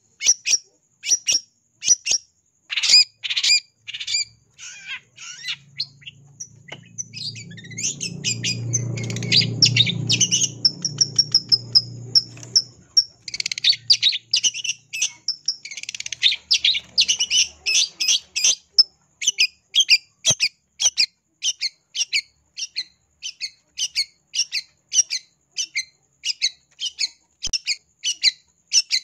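Long-tailed shrike (cendet) calling in the fired-up challenge call that keepers use to lure rival shrikes into answering: short, sharp notes repeated about twice a second. In the middle it breaks into a faster chattering run before settling back into the steady repeated notes. A low droning hum sounds underneath for several seconds in the middle.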